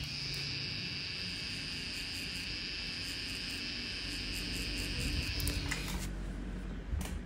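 Tattoo machine running with a steady high-pitched whine while packing colour into skin, stopping about six seconds in, followed by a few faint clicks.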